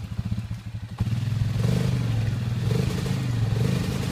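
Suzuki KingQuad 750 ATV's single-cylinder engine drops to a slow idle, then revs hard again about a second in and stays revved with its wheels spinning, as the quad is stuck in a deep mud rut.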